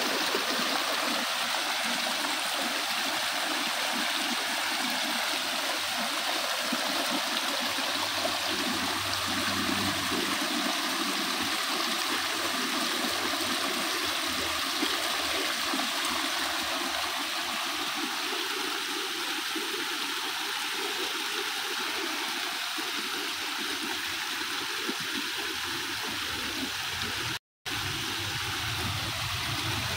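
A small waterfall of water pouring and splashing over mossy rocks into a shallow pool, a steady rush. Near the end the sound drops out completely for a split second.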